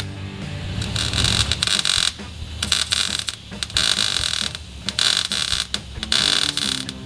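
MIG welder arc crackling and hissing in about five bursts of roughly a second each, with short pauses between them: tack and plug welding a steel doubler plate to a car's trunk pan. Background music runs underneath.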